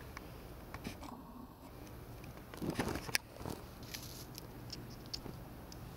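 Light rustling and scattered faint ticks of dry pine needles and twigs being stepped on, with a louder rustle about halfway through.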